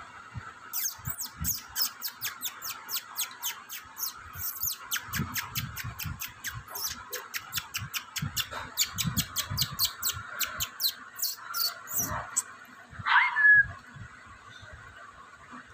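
A Maltese puppy's claws clicking fast on a glass tabletop as it scampers about, about four or five light ticks a second with soft low thumps, stopping about 12 seconds in. Near the end comes one short rising squeak, the loudest sound, likely a yip from the puppy.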